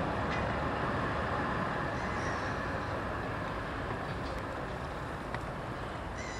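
Steady outdoor noise of distant city traffic, with two faint high chirps, one about two seconds in and one near the end.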